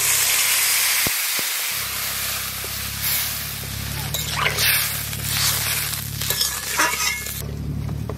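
Water from boiled greens poured into hot oil in a kadai, sizzling hard as it hits. The hiss is loudest over the first few seconds, then breaks into patchy spitting and bubbling that dies down near the end.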